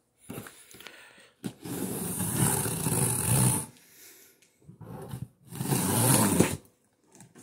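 A blade slitting the packing tape along the seam of a cardboard box. Two long scratchy strokes, the first starting about a second and a half in and the second near the end, with a few lighter scrapes between.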